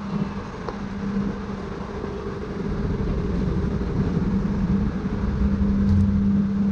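Parked coach bus idling with its door open, a steady low engine hum and rumble.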